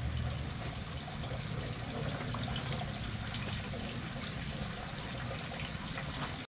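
Thin streams of water trickling steadily from bamboo spouts onto pebbles in a shrine's wooden purification trough, with water splashing off hands rinsed under the streams.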